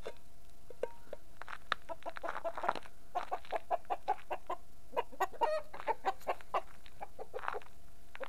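Chickens clucking: a quick run of short calls, several a second, from about two seconds in until near the end.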